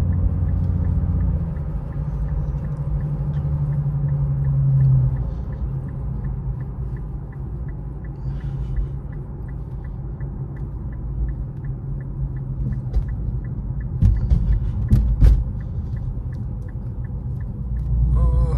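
Interior cabin sound of an Infiniti Q50 3.7's V6 and tyres at a steady cruise, a low, even rumble and drone. From about six seconds in there is a light, regular ticking at about two a second, and a few sharp knocks come near the end.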